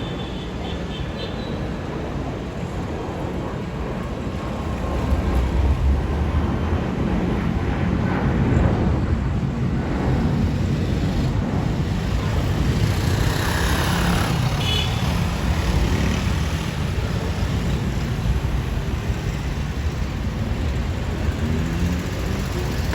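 Airbus A319-132 airliner heard from inside the cabin: a steady low rumble and hiss of its IAE V2500 engines and airframe, growing louder about five seconds in and then holding.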